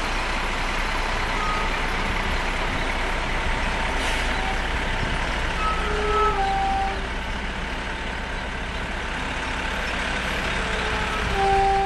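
Fire trucks' diesel engines running as the apparatus rolls slowly past in a line. Two short horn blasts sound, one about six seconds in and another near the end.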